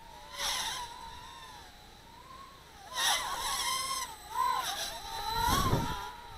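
Electric motors and propellers of a micro quadcopter whining in flight, the pitch swooping up and down as the throttle is punched, with louder surges about half a second in, around three seconds in and again near the end. A low rumble comes in under the whine near the end.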